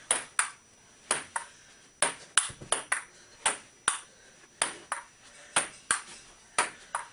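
Table tennis rally: the ping-pong ball clicking sharply off the paddles and the table in a steady back-and-forth rhythm, two or three hits a second, often in quick pairs of bounce and return.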